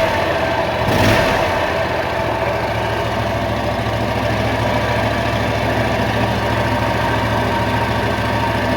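Rebuilt 24.6 hp EFI engine of a John Deere Z925M zero-turn mower running steadily, with a brief surge about a second in.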